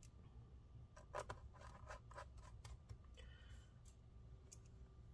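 Faint clicks and scrapes of small screws and fingers against the aluminium bottom case of a MacBook Air as it is being closed up, bunched about a second in, with a brief squeak after and a couple of small clicks near the end, over a low hum.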